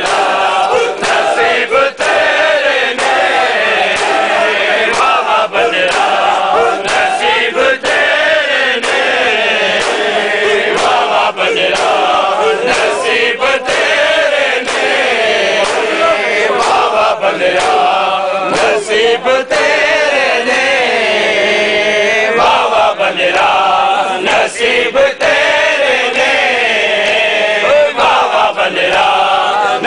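A large crowd of men chanting a noha in unison, loud and steady, with many sharp slaps of matam, hands striking bare chests, cutting through the chant.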